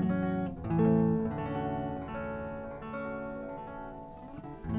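Archtop guitar played alone, chords plucked: one struck about half a second in rings and slowly fades, and new notes come in near the end.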